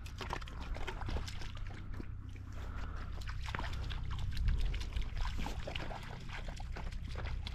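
Footsteps pushing through dry grass and brush cover: a steady run of rustling and crackling, with a steady low rumble underneath.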